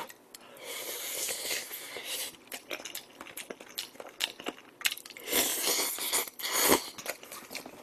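Close-miked eating sounds: wet chewing of a piece of potato from pork-bone potato stew, with many small mouth clicks, then a louder slurp from the bowl about five seconds in.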